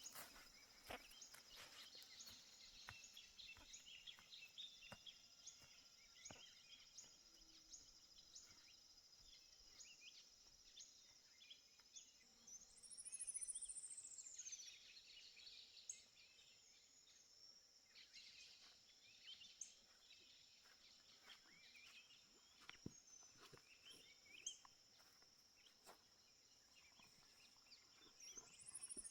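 Faint nature ambience: a steady high-pitched insect drone with scattered bird chirps, and twice a high call that sweeps up and then slides down, once about halfway through and again near the end.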